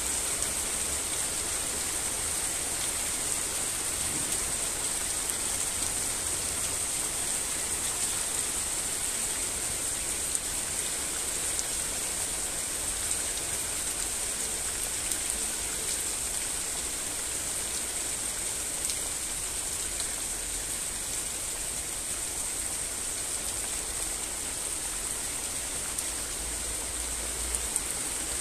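Steady rain falling: an even hiss with occasional faint ticks of single drops.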